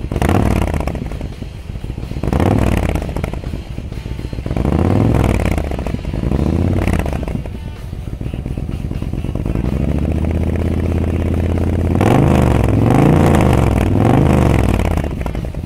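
Honda VT1300's V-twin revved with no load through Cobra 3-inch slip-on mufflers. Four separate throttle blips rise and fall, then the engine holds a steadier, slowly climbing note for a few seconds, then three quick blips come near the end.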